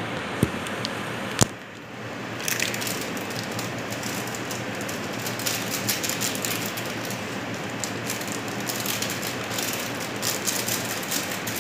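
Food frying in a skillet, sizzling with many small crackles and pops, over the steady noise of a kitchen exhaust fan. Two sharp clicks sound within the first two seconds.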